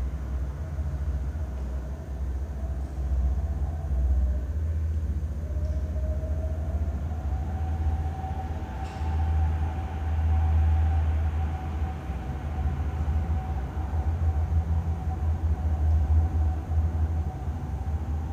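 Steady low rumble, with a faint wavering hum above it.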